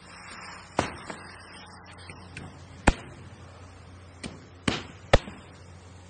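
Sharp knocks and bangs on a construction site, several strikes at uneven spacing with the loudest near the end, over a low steady hum.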